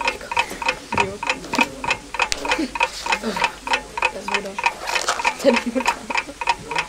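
Rapid, even clock-like ticking, about four ticks a second, as a countdown while the answer is being looked up. Faint voices murmur underneath.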